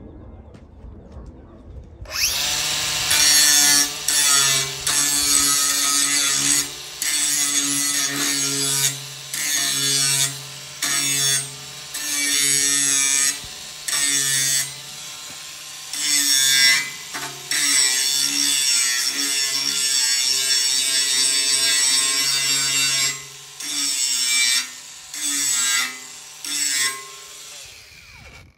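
Bosch GWS 18V-15 PSC cordless angle grinder grinding steel, starting about two seconds in. The grinding noise breaks off briefly every second or two over a steady motor tone, and fades out near the end.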